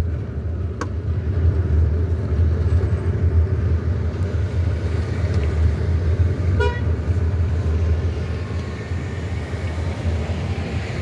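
Steady low rumble of street traffic, with a short horn toot about two-thirds of the way through. A sharp slap about a second in comes as flat bolani dough is pressed onto the tandoor's clay wall.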